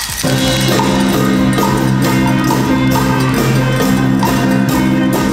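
Background music cutting in abruptly just after the start: held notes over a steady percussive beat.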